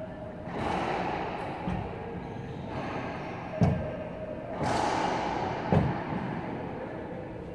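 A racquetball bounced on the hardwood court floor while the server readies to serve: two sharp thuds about two seconds apart, over a rushing background noise.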